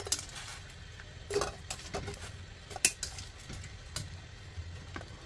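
Metal tongs clinking against a stainless steel pan and bowl as boiled prawns are lifted out of the water: several separate sharp clinks, the loudest about three seconds in, over a low steady hum.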